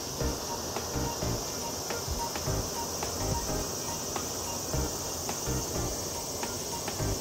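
Insects droning steadily and high-pitched from the trees, with background music's low beat underneath.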